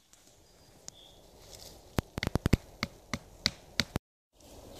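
A quick, irregular run of sharp clicks and knocks, about eight in two seconds, starting about two seconds in.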